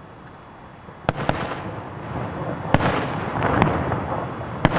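Aerial fireworks bursting: about five sharp bangs over a continuous crackle that grows louder after about a second.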